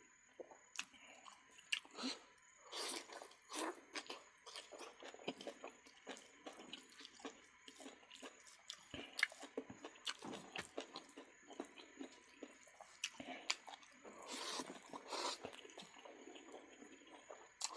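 A person eating duck meat close to the microphone: chewing and biting, with many small irregular clicks and wet mouth sounds.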